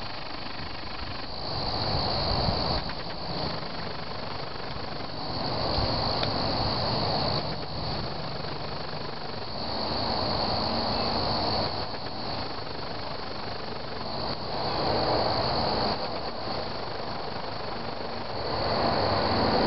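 Garden crickets chirping continuously in a high, steady trill that grows louder and softer every few seconds. Over it, a louder rushing noise swells and fades several times.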